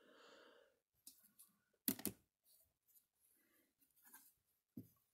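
Faint clicks and taps of rigid plastic trading-card holders being handled and set down on a desk, after a soft rustle at the start; the sharpest two clicks come about two seconds in, with another near the end.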